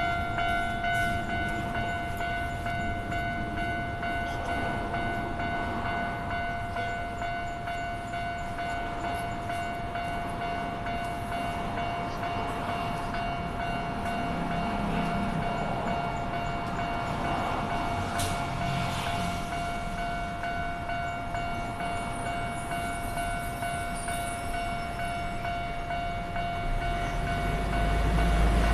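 Japanese railway level-crossing warning alarm ringing steadily on one pitch. Near the end a Keio Line train's low rumble grows louder as it approaches.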